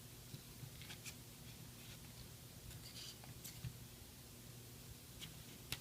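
A few faint, light clicks and taps from small tools and tiny phone parts being handled, over a low steady hum.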